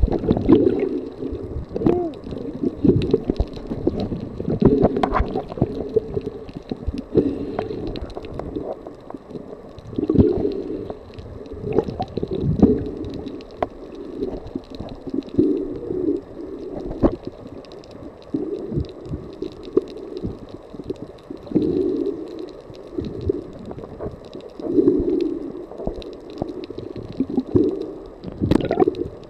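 Muffled underwater sound of water gurgling and sloshing around a camera held just below the sea surface, swelling in bursts every two to three seconds.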